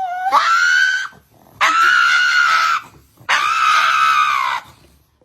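An animal screaming three times, each a long, high-pitched held call about a second long, with short pauses between them.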